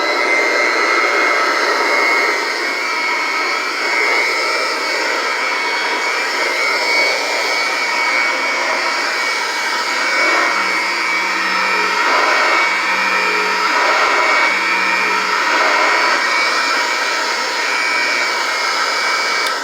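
Vintage Kirby 505 vacuum cleaner's original motor running at full speed with a steady whine over the rush of air. A low hum comes and goes three times about halfway through.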